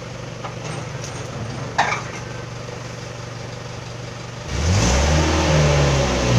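A steady low engine hum, then about four and a half seconds in a motor vehicle passes close by, much louder, its engine note sliding down in pitch as it goes past. A single sharp click near two seconds in.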